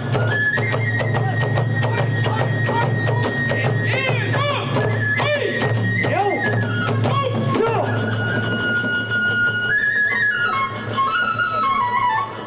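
Kagura hayashi accompaniment: a transverse flute plays a melody of long held notes, stepping lower in the second half, over a fast, even beat of drums and small hand cymbals.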